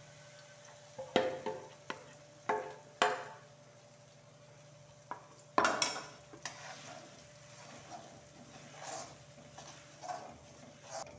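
Besan batter hitting hot oil in a metal kadhai and sizzling faintly, while a slotted metal spoon stirs and scrapes it, knocking against the pan several times; the loudest knock comes about five and a half seconds in.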